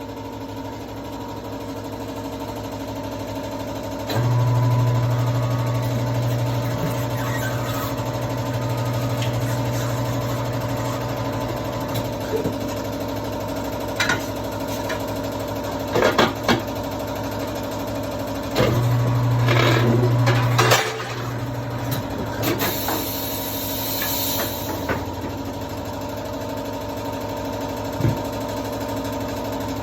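Tyre-changing workshop machinery: a motor hum starts suddenly and runs for several seconds, then runs again more briefly later, over a steady background hum. A few sharp clanks and knocks come in between.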